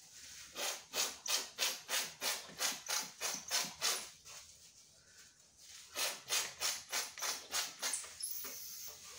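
Hand-pump powder sprayer being pumped in quick strokes, each one puffing out red velvet decorating powder with a short hiss. There are two runs: about eleven strokes, a brief pause, then about seven more.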